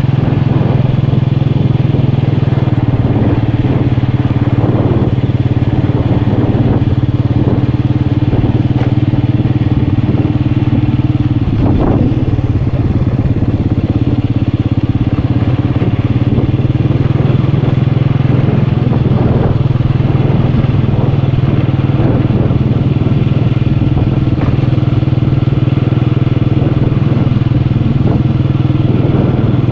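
Motorcycle engine running steadily under way, with occasional short knocks. Its tone drops a little about twelve seconds in and rises again a few seconds later.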